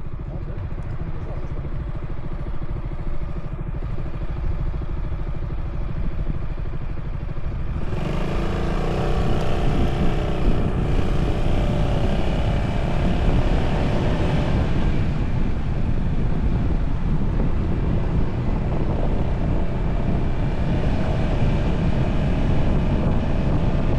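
Yamaha Tricity 300 scooter's single-cylinder engine running under way, with a low rumble; about eight seconds in it gets louder and brighter and stays so.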